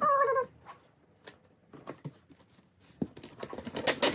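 Clear packing tape being pulled off its roll and pressed onto a cardboard shipping box: scattered crackles and taps, becoming a dense run of sharp crackling clicks in the last second or so.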